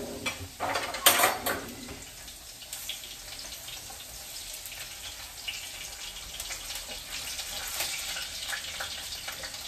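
Potatoes frying in hot mustard oil in a kadai: a steady sizzle, with a wooden spatula scraping and turning them in the pan. A louder clatter and burst of sizzling about a second in.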